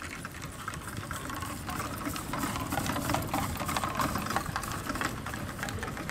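Harness horses trotting with sulkies: a quick, irregular rattling clatter over a low rumble.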